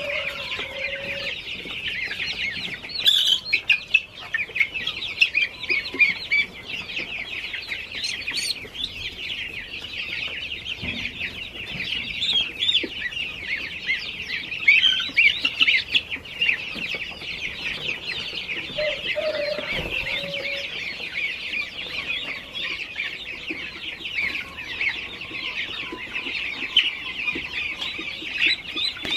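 A flock of baby chicks and goslings peeping continuously, many high, rapid chirps overlapping, with a few lower calls now and then.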